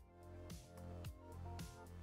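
Background music with a steady beat, about two beats a second, over sustained chords and a bass line.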